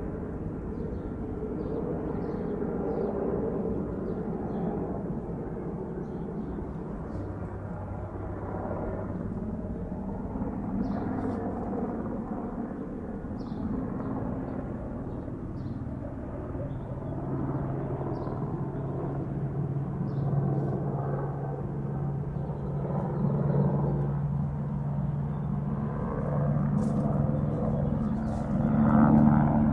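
Helicopter circling, a continuous rotor-and-engine drone. Its low hum grows stronger in the second half and it is loudest near the end as it passes closer.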